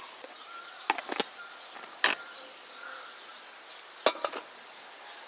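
Ceramic teapot and its lid clinking as they are handled and set down on the metal crown of a samovar: a few sharp clicks in the first two seconds, then a louder pair about four seconds in.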